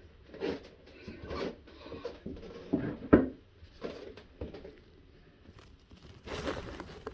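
Irregular knocks, scrapes and rustling from hand work around an old galvanized drain pipe, with one sharp knock about three seconds in and a longer scraping stretch near the end.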